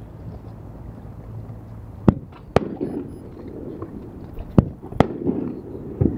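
Aerial fireworks shells bursting: five sharp bangs, two close together about two seconds in, two more about four and a half seconds in, and one just before the end.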